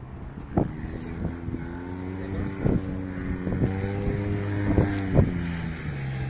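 A passing motor vehicle's engine hum that rises slightly in pitch, then drops near the end as it goes by. Several sharp taps or knocks sound over it.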